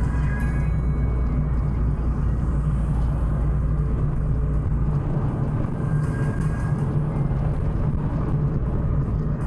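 Chevrolet Astra cabin noise at highway speed: a steady low rumble of engine and tyres on the road, heard from inside the car while it eases off from about 70 to 63 km/h.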